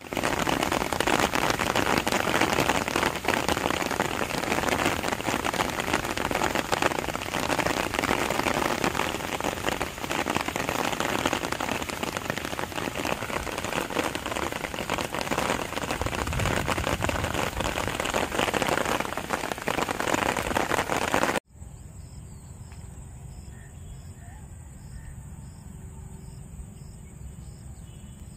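Steady rain falling, cutting off abruptly about 21 seconds in to a much quieter background with faint insect chirping.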